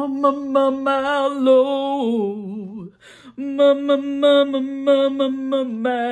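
A woman singing a short wordless phrase a cappella, twice: quick repeated notes on one held pitch with vibrato, each time sliding down at the end, with a short break between the two.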